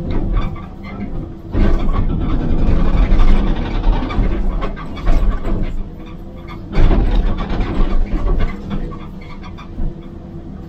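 Excavator-mounted hydraulic breaker hammering concrete, heard from inside the excavator cab over the steady hum of the machine's engine. It comes in bursts of rapid blows: briefly at the start, for about four seconds from a second and a half in, and again about seven seconds in, with pauses where only the engine is heard.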